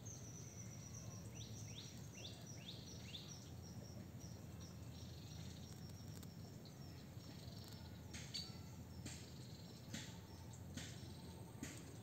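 Faint outdoor ambience: a steady low rumble under high, thin animal calls. A quick series of short notes each drops in pitch, about three a second, over the first few seconds. Scattered sharp chips come from about two-thirds of the way in.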